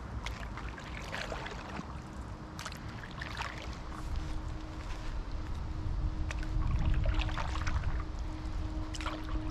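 Paddleboard paddle dipping into lake water, a splashy stroke every second or two over a low rumble that swells near the middle. A faint, steady ambient-music tone fades in underneath.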